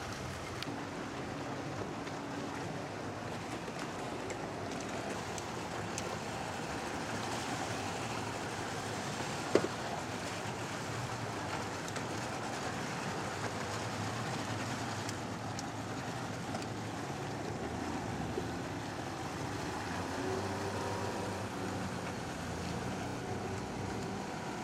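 Yamaha Enduro two-stroke outboard motors on wooden water taxis running, one boat pulling away under power, heard as a steady wash of engine and churning water. A single sharp click about ten seconds in.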